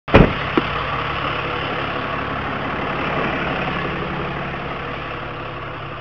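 Tow truck engine running steadily at low speed, heard from inside the cab, easing off slightly toward the end. A sharp click right at the start and a small knock just after.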